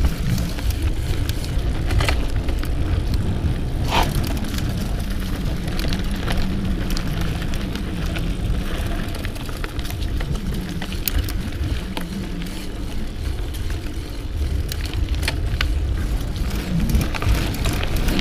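Mountain bike being ridden: a steady low rumble of tyres rolling and wind on the microphone, with scattered sharp clicks and knocks from the bike.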